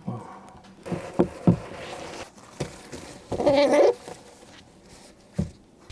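Scattered taps and knocks, with one short, wavering call from an Amazon parrot about three and a half seconds in.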